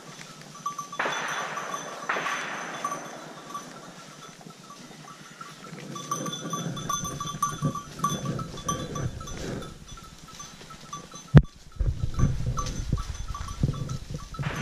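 A flock of sheep and goats on the move, with a small animal bell clinking steadily through the first half. From about halfway, low rustling and thumps of footsteps in dry leaves join in, with one sharp knock a little after the middle.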